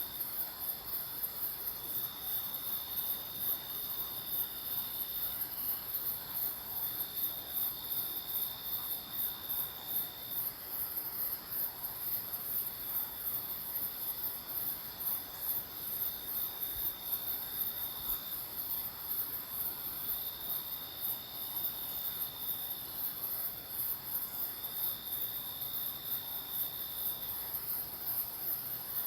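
Night-time crickets and other insects chirring together: a dense, fast-pulsing high trill throughout, with a steady thin tone from another insect that starts and stops in stretches of a few seconds.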